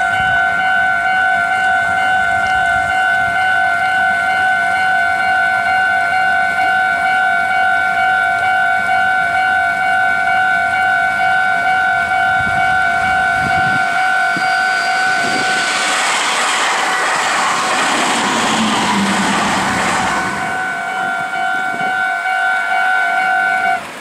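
Japanese level-crossing alarm ringing its repeated electronic bell. About fifteen seconds in, a Meitetsu 3150 and 3500 series electric train passes with a rush of wheel and rail noise lasting about five seconds. The bell stops just before the end.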